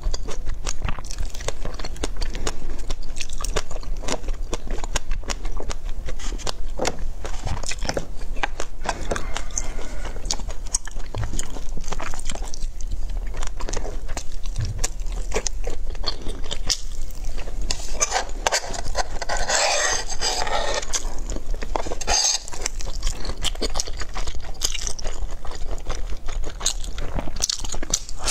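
Close-miked eating: biting and chewing through strawberries, crab sticks and chili-sauced enoki mushrooms, a dense run of small wet clicks, with a louder stretch about two-thirds of the way through.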